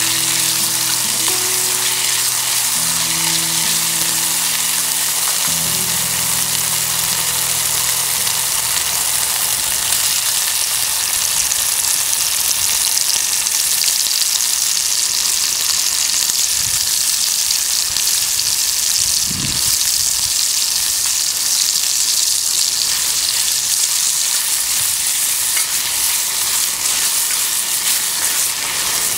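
Food frying in a hot pan: a steady, loud sizzle.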